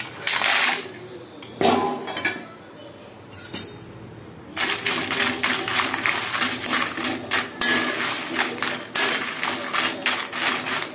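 Dry red chillies dropped into a dry iron kadai, then stirred and scraped around it with a perforated steel ladle. Two short rattles near the start, then from about four and a half seconds in a dense, continuous run of metal-on-metal scrapes and clinks.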